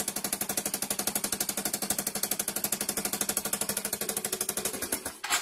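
Yamaha Mio i125's single-cylinder four-stroke engine idling, heard close at the exhaust pipe joint as a fast, even chuffing. Exhaust is escaping through a leak at the rusted pipe joint, which the owner takes for the cause of the backfire. The sound cuts off about five seconds in.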